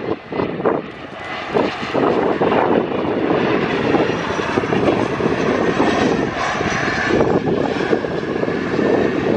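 Delta CRJ-900 regional jet's two rear-mounted turbofan engines on landing approach: a steady jet rumble with a faint high whine, growing louder over the first two seconds as the jet passes.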